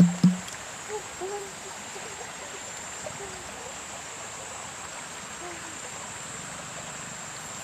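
A small stream running over rock, a steady rush of water, with one sharp knock just after the start and a few faint short chirps here and there.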